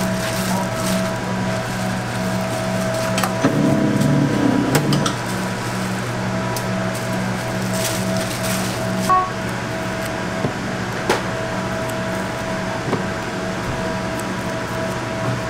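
Steady electrical hum of kitchen machinery with a tone pulsing about twice a second, under the crinkle of aluminium foil and scattered light knocks as gimbap rolls are handled and laid on the foil.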